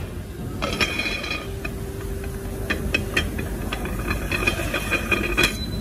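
Metal ceiling-fan motor cover handled on a steel workbench: a few light metallic clicks with brief ringing as it is set down and moved, and the rub of a cloth wiping it, over a steady low workshop hum.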